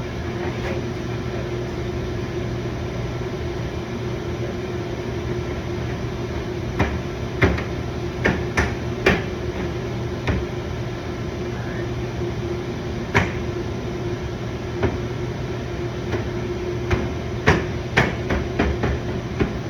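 Scattered sharp clicks and knocks of a car's front bumper and its fasteners being handled and fitted into place. They come in a cluster about seven to nine seconds in, once around thirteen seconds, and again in a run near the end, over a steady low hum.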